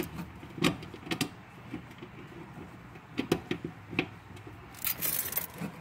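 Scattered small clicks and taps of hands working the fittings and connectors on a fuel pump seated in the tank's access opening, with a brief scraping rustle near the end.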